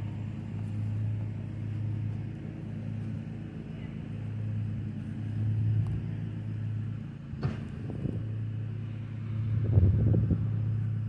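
Zero-turn lawn mower engine running steadily with a low hum, with a couple of short knocks in the second half.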